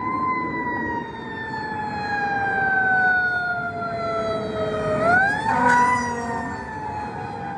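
Fire apparatus's Federal Q2B mechanical siren wailing: wound up to its peak, slowly coasting down in pitch for about five seconds, then wound up again and coasting down once more. A brief loud burst of noise comes in near the second peak.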